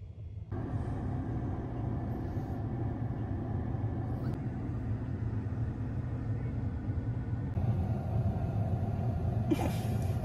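Car engine running, heard from inside the cabin as a steady low hum that sets in about half a second in.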